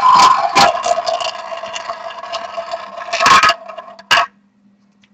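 Roulette wheel spinning with the ball rolling and rattling around it, slowing and clicking over the pockets before it settles about three and a half seconds in; a single short knock follows.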